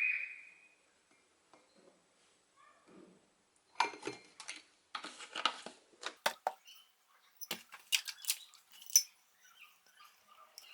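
A metal tablespoon clinking and scraping against a mug and dishes as ingredients are spooned in. It opens with a short ringing clink, then comes a scatter of light clicks and clatters, sharpest a little past the middle.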